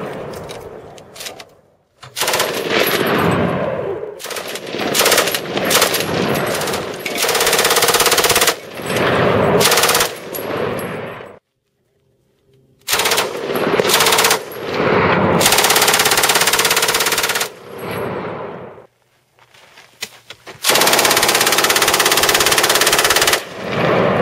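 Machine guns firing full-automatic in long bursts, several lasting two to three seconds, broken by short pauses and two brief silences.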